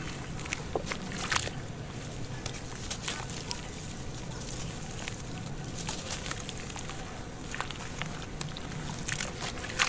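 Hands crumbling and squeezing soft clay chunks in a tub of muddy water: wet sloshing with irregular gritty crackles and crunches, the sharpest about a second and a half in and near the end.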